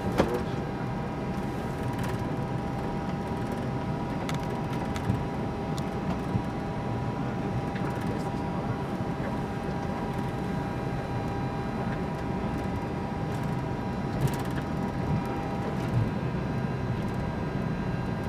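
Steady noise inside an Airbus A321 cockpit while taxiing: a constant drone from the engines and air systems with a thin steady whine, and a few scattered clicks and knocks.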